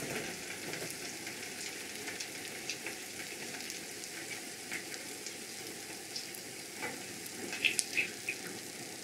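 Rice paper mushroom rolls deep-frying in a saucepan of hot oil, a steady sizzle. A few light clicks of chopsticks against the pan come near the end.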